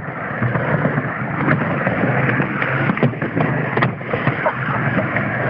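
Skateboard wheels rolling on a mini ramp, a steady rumbling hiss, with a few sharp knocks of boards and trucks hitting the ramp.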